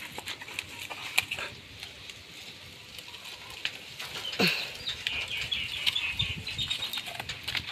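Puppy eating watery rice food from a plastic bowl, lapping and chewing in a rapid run of small wet clicks over the second half. A few sharp knocks come in the first second or so, and a brief falling call cuts in about halfway.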